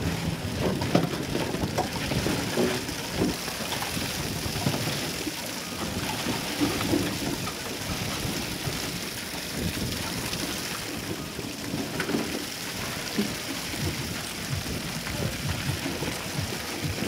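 Ice and aluminium beer cans clattering and rattling into a metal trough as it is loaded, a continuous patter of many small knocks over a steady low rumble.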